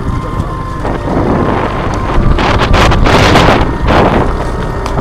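Motorcycle engine running while riding a dirt trail, with wind buffeting the microphone in a loud rush about halfway through.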